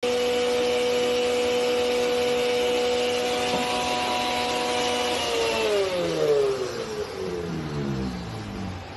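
A motor whining at a steady high pitch, then winding down, its pitch falling steadily through the last few seconds as it slows.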